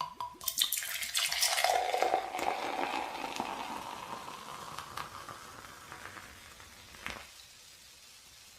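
A carbonated drink poured into a glass: a sharp click at the start, then pouring with a tone that rises as the glass fills, and dense crackling fizz that slowly dies away. One more click comes near the end.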